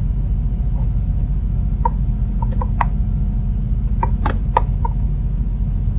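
Scattered small clicks and taps from the plastic housing and folding panels of an LED light bulb being handled: a few around two to three seconds in and a quicker cluster around four to five seconds in, over a steady low hum.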